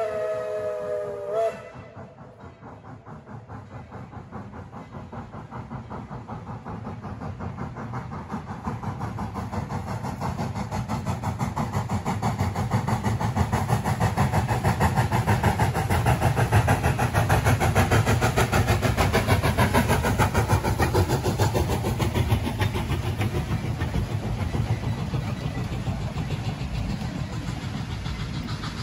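Steam locomotive whistle sounding a multi-tone chord that cuts off about a second and a half in. The train then approaches and passes, its rhythmic running noise growing louder to a peak past the middle and slowly fading.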